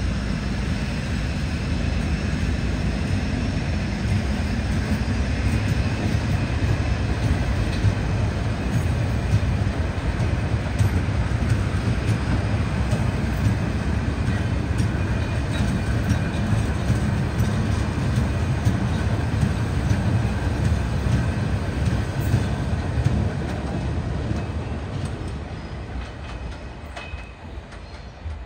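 Train passing through: a long, steady rumble of wheels on the rails with a faint high whine over it, dying away over the last few seconds as it leaves.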